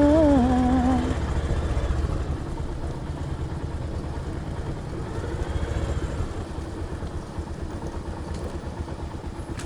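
Motorcycle engine running steadily at low speed, an even rapid firing pulse. A man's held sung note trails off about a second in.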